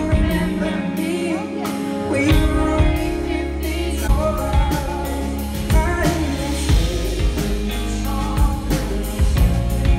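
Live band playing a song: a man singing lead over electric guitar (a Fender Telecaster), bass and steady drum hits.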